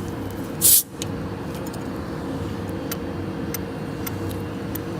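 A short burst of compressed-air hiss from the tape machine's pneumatic system, about two-thirds of a second in, over a steady machine hum with a faint ticking here and there.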